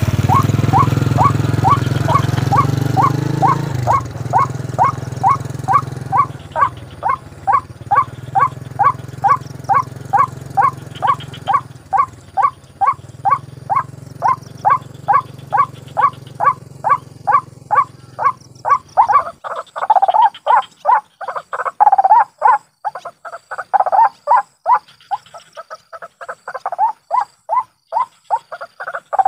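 White-breasted waterhen calling a long, monotonous run of short 'ruak' notes, about two and a half a second without a break. An engine runs low underneath and stops about two-thirds of the way through.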